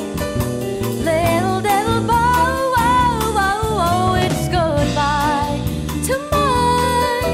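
Brazilian jazz band playing a bossa nova tune. A wavering, bending melody line rides over a steady rhythm section with drums.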